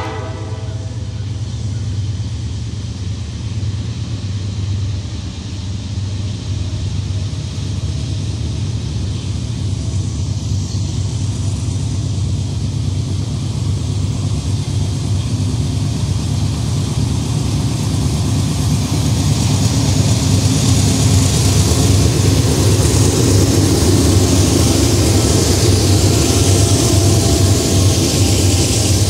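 Norfolk Southern diesel freight locomotives approaching and passing, the engines' low drone steadily growing louder, with the end of a horn blast about half a second in. Wheel and rail noise rises over the last several seconds as the lead locomotive comes alongside.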